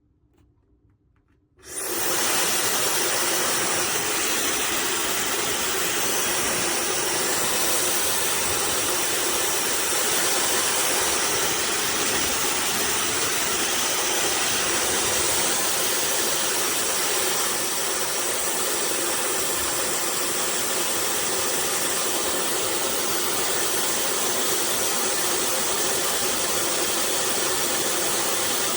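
OSOU high-speed hair dryer switched on about two seconds in, its sudden loud airflow hiss then running steadily.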